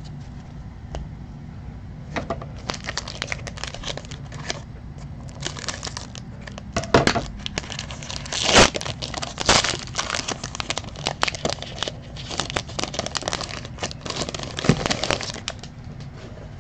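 Foil wrapper of a Prizm baseball card pack crinkling and tearing as it is ripped open by hand. It comes as a long run of sharp crackles, with the loudest rips about halfway through.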